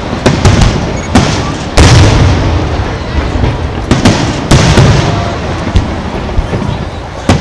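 Aerial firework shells bursting overhead: a string of sharp booms at uneven intervals, the loudest about two seconds in, with the echo ringing on between bursts.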